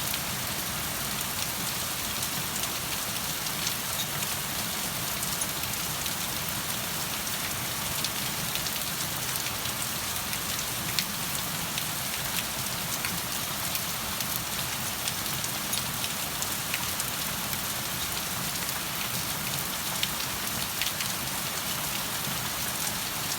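Steady rain falling on a surface, an even hiss with scattered distinct drop ticks.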